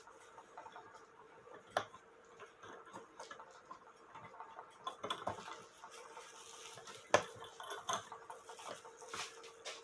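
Scattered small metal clicks and clinks from handling a cuckoo clock movement and its parts, with the loudest knock about seven seconds in, over a faint steady hum.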